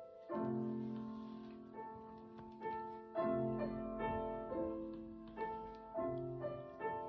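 Piano playing a slow passage of chords and single notes, each chord struck and left to ring and fade.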